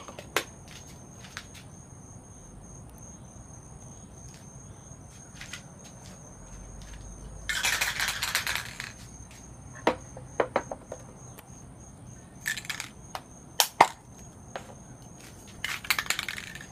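Aerosol spray paint can sprayed in three short hissing bursts, the first about a second and a half long and the others shorter, with sharp clicks and knocks from handling between them.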